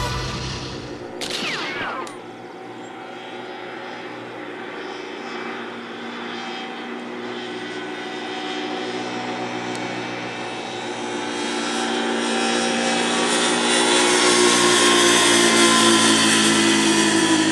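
Motorcycle engines running at a steady cruise with wind noise, getting louder about two-thirds of the way through.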